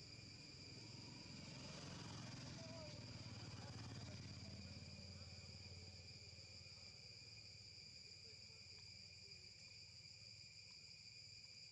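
Faint, steady chorus of insects, crickets or cicadas, holding several continuous high-pitched tones. A soft low rush swells up and fades away about two to five seconds in.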